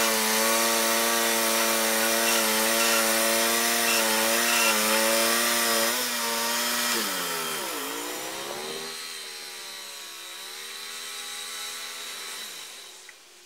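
Wood-Mizer LT35 bandsaw mill sawing a slab off an English walnut log, its engine running steadily under load with the hiss of the band blade in the wood. About seven seconds in the cut ends: the engine note dips sharply and comes back up, then runs lower and quieter before dying away shortly before the end.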